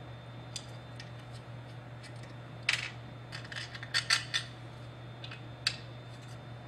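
Small metal parts clicking and clinking by hand as studs are fitted into a carburettor throttle plate, in scattered light taps with a brief cluster of clinks near the middle, over a low steady hum.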